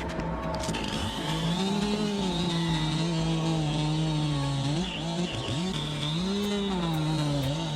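Two-stroke chainsaw running at high revs and cutting wood. It picks up about a second in, and its pitch sags and climbs again as the chain loads in the cut, dipping sharply and re-revving about midway.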